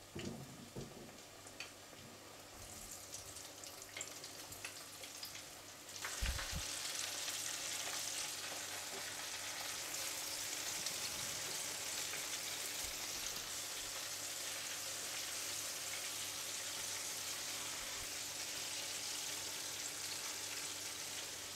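Flour-coated chicken wings deep-frying in hot oil: a steady sizzle and crackle that steps up suddenly to a louder, even hiss about six seconds in, with a soft low thump just after.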